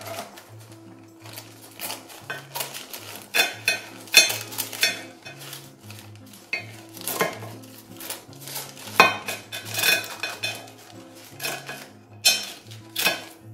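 Scissors snipping and crinkling baking paper as it is trimmed to line a baking dish, in an irregular run of crisp snips and paper crackles.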